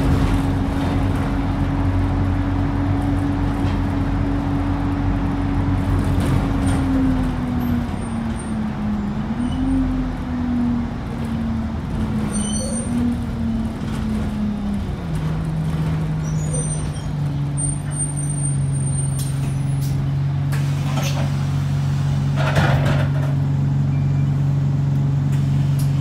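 Inside a moving Alexander Dennis Enviro 200 single-deck bus: steady drivetrain noise with a droning tone that wavers and falls in pitch about six seconds in, then settles at a lower pitch after about fifteen seconds, over road and cabin rattle, with a few short knocks and hisses near the middle and end.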